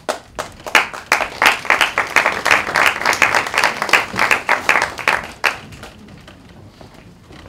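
Small theatre audience applauding, a dense run of many hand claps that dies away about five and a half seconds in.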